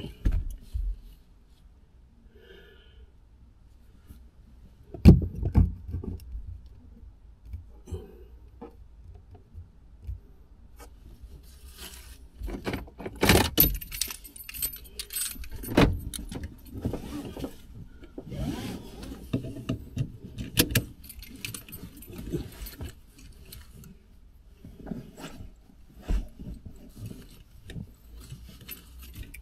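Keys jangling and clinking in hand inside a car's cabin, with scattered knocks and rustling; a sharp thump about five seconds in, and the busiest jangling around the middle.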